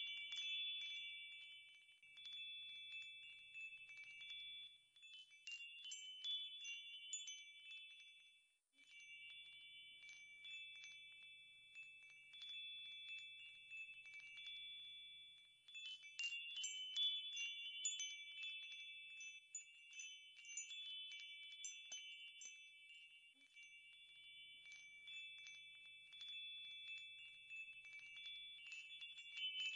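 Faint wind chimes ringing: several high metal tones overlap and sustain, renewed by clusters of light strikes. They die away briefly about nine seconds in, then pick up again.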